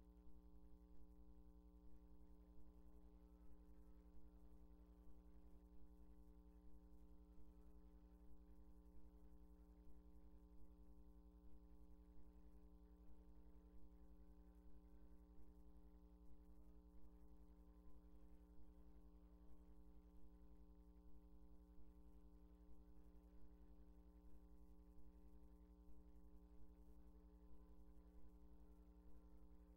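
Near silence: a steady, low electrical hum with faint, regular pulses, and no singing or playing heard.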